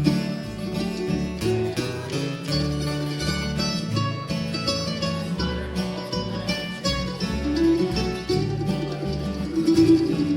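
Instrumental break of an acoustic country-bluegrass trio: acoustic guitar and mandolin picking over walking upright bass notes, with no singing.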